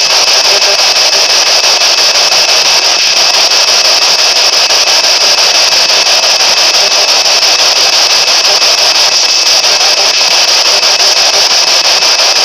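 P-SB11 spirit box sweeping through radio frequencies, giving a loud, steady static hiss chopped by a rapid, even flutter as it steps from channel to channel.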